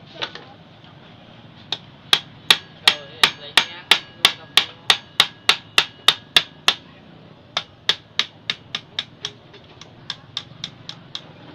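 Hand hammer striking metal, each blow ringing briefly: a steady run of blows about three a second, a short pause, a quicker run, then lighter taps near the end.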